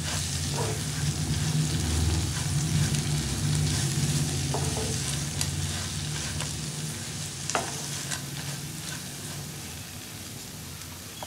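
Chopped black nightshade greens sizzling in oil in a nonstick pan as a wooden spatula stirs them, with scattered scrapes and knocks of the spatula on the pan. The sizzle slowly dies down, and a low hum underneath stops a little past halfway.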